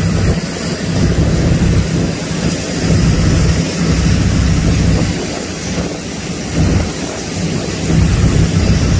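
Motorboat engine running steadily at towing speed under the rush of wind on the microphone and the churning of the boat's wake.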